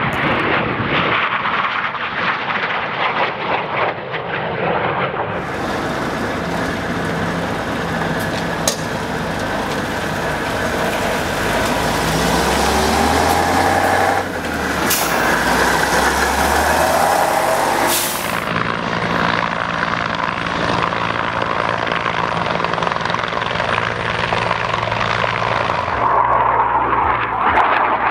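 Jet aircraft and heavy military truck sounds cut together. Jet engines pass overhead, and a Tatra truck's diesel engine runs with its pitch stepping up and down.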